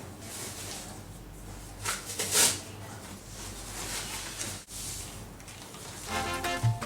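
Faint rustling and handling noises, with a louder rustle about two seconds in. Music begins near the end.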